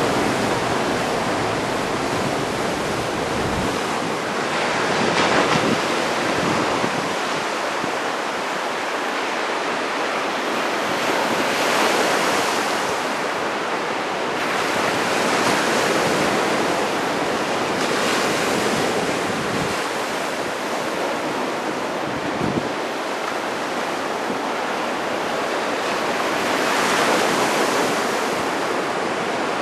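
Heavy surf from a typhoon swell, a continuous wash of breaking waves that grows louder every few seconds as each big wave breaks, with strong wind buffeting the microphone.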